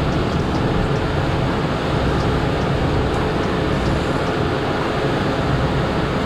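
Twin outboard motors running steadily with the boat under way, mixed with rushing wind and water.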